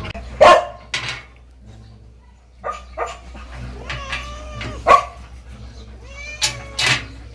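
Chocolate Labrador giving several short, sharp barks and yips, the loudest about half a second in and about five seconds in.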